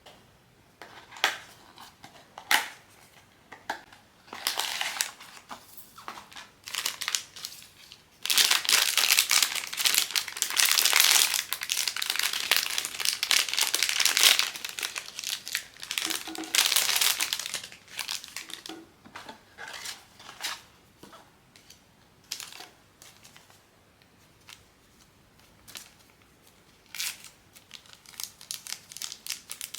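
Plastic blind-box packaging crinkling and tearing as it is unwrapped by hand: scattered crackles and clicks, with a long stretch of loud, dense crinkling from about eight to fifteen seconds in.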